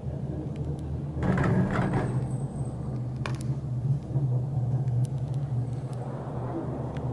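Steady low rumble inside a Leitner six-seat gondola cabin running on the haul rope. About a second in comes a louder rattling rumble for about a second as the cabin's grip crosses the roller sheaves of a support tower, and a sharp click follows shortly after.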